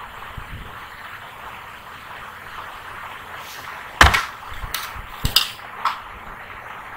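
A handful of sharp computer mouse and keyboard clicks, the loudest about four seconds in and four more over the next two seconds, over a steady low microphone hiss.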